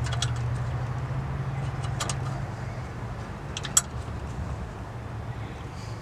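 A few sharp metallic clicks and clinks from tools and parts being handled on the truck's engine, over a steady low hum; the loudest click comes just before the middle.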